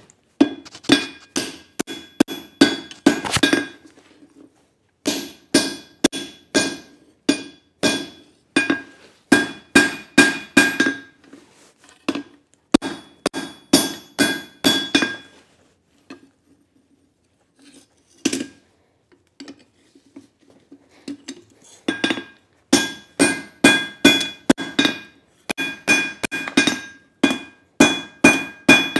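Hand hammer striking a red-hot bar of leaf-spring steel on an anvil while squaring up its end, about two blows a second, the anvil ringing at every strike. The blows come in runs broken by short pauses, with a longer lull of a few seconds about halfway through that holds a single blow.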